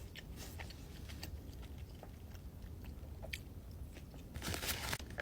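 Close-miked chewing of juicy steak, with soft wet mouth clicks now and then and a louder rustle near the end.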